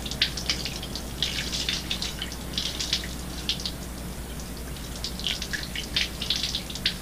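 A thin stream of liquid pouring and splashing in irregular spurts, over a steady low hum from the old recording.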